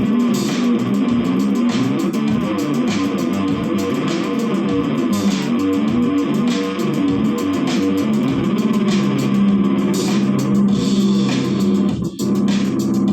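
Electric bass guitar played through a Zoom GM-200 effects unit on a punk-funk sound, a steady run of quickly changing plucked notes, with a brief break in the playing near the end.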